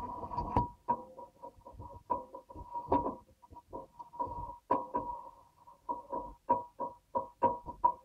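Whirlpool dishwasher running its wash cycle, heard from inside the tub: the machine's steady hum and water spray cut in and out in quick, irregular pulses with sharp spattering clicks.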